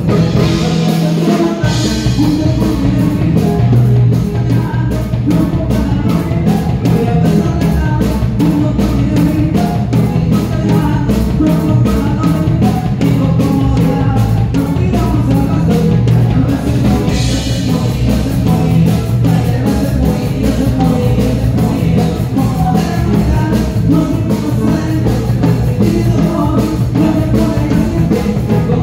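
Live band music with accordion, drums and singing, played loud through a PA with a steady beat.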